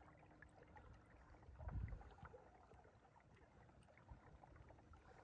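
Near silence: faint water trickling and ticking against a kayak hull, with one soft low thump about two seconds in.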